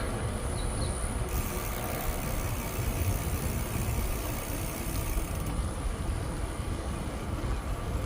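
Steady low rumble of wind and rolling noise while riding a bicycle, under a steady high drone of insects.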